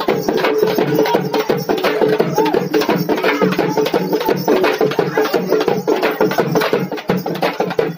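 Several large shoulder-slung barrel drums beaten together by hand and stick in a fast, steady, driving rhythm.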